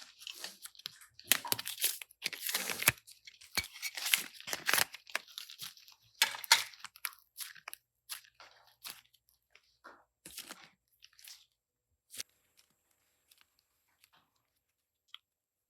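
Slime being worked by hand close to the microphone: irregular crackling, crunching squishes that come thick and fast for about eleven seconds, then thin out to a few scattered clicks.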